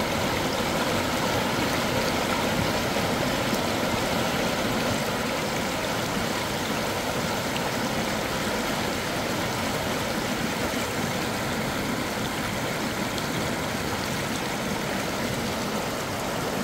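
Shallow river water running steadily, an even rushing noise.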